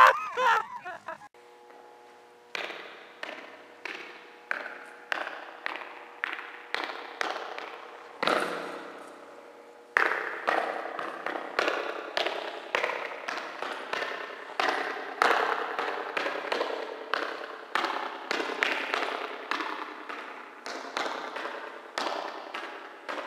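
Sneakered footsteps stomping across a tile floor, each step echoing off hard surfaces. They start about two seconds in at a steady walking pace and come thicker and faster from about ten seconds in.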